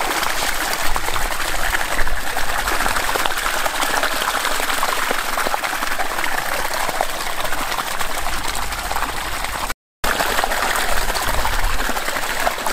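Steady rush of water flowing from a plastic siphon pipe that draws from the river with no pump or electricity. The sound cuts out for a split second nearly ten seconds in.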